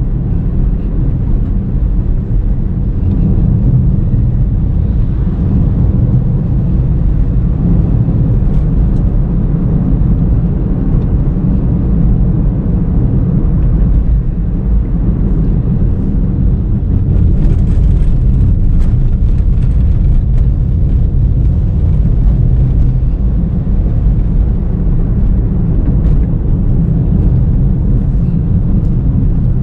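2019 Honda Brio V CVT on the move: a steady low rumble of engine and road noise. Faint quick clicks or rattles come through for a few seconds near the middle.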